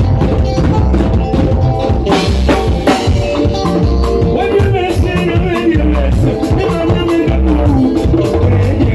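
A live band playing with a steady beat on hand drums and drum kit, electric guitar and keyboard, with a man singing into a microphone.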